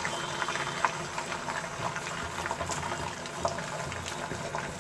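Beaten egg sizzling and bubbling in hot oil in a nonstick frying pan, a steady crackle with many small irregular pops as the omelette sets.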